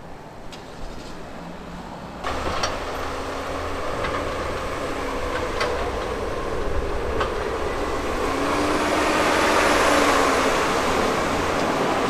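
Traffic on a snow-covered city street, starting abruptly about two seconds in: a plow truck with a salt spreader approaches and passes close, its engine and tyre noise building to a peak near the end. A few sharp clicks sound through it.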